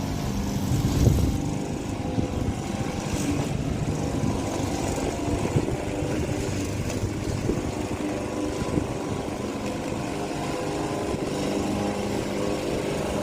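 Lawnmower engine running steadily under load while cutting grass on a high setting.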